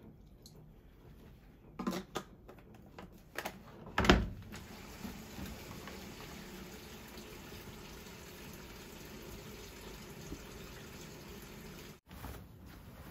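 Hitachi NW-5TR top-loading washing machine being started: a few clicks at the lid and buttons, a thump about four seconds in as the lid shuts, then a steady rush of water filling the drum.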